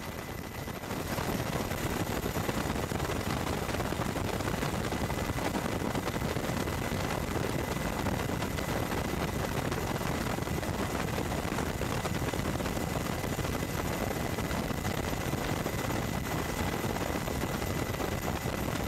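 Steady helicopter noise, with the rotor and turbine running and a thin high whine throughout. It grows louder about a second in.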